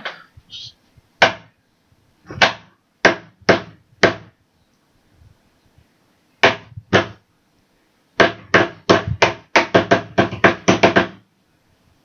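Sharp knocks of a fidget spinner being banged against a hard surface to force out its centre bearing. About seven spaced knocks, then a fast run of about a dozen toward the end.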